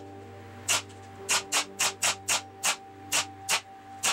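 Pneumatic brad nailer firing about ten times in a quick, uneven run, each shot a sharp snap, driving brads through a plywood strip. A steady low hum runs underneath.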